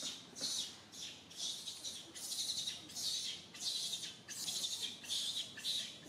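Cicadas buzzing in rhythmic high-pitched pulses, about two a second.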